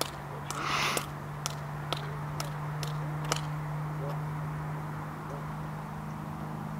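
Distant Extra 300L's six-cylinder engine and propeller giving a steady drone at takeoff power as the plane lifts off and climbs away. Sharp clicks come about twice a second through the first half, with a brief hiss about a second in.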